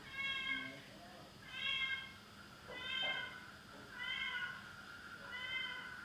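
Cat meowing over and over: five short, high calls, evenly spaced a little over a second apart.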